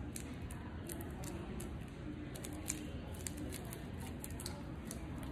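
Faint scattered crinkling and clicking of nitrile-gloved hands working a still-soft moldable knife handle, over quiet room tone.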